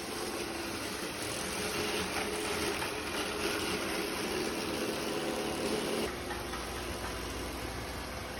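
Motors of an ECOVACS Deebot X9 Pro Omni robot vacuum and mop system running with a steady mechanical hum. About six seconds in, the sound changes to a lower hum.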